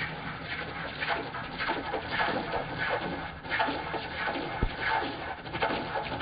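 Record CL3 wood lathe running while a gouge cuts a wet, green sycamore bowl blank: repeated short scraping bursts of cutting over a steady motor hum.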